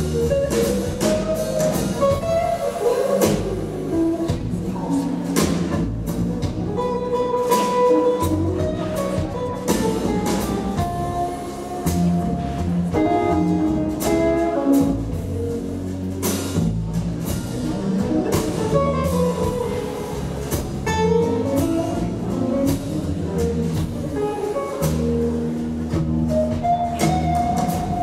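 Live jazz instrumental: a hollow-body electric guitar plays single-note melody lines over plucked double bass, with drums keeping time through short cymbal and drum strokes.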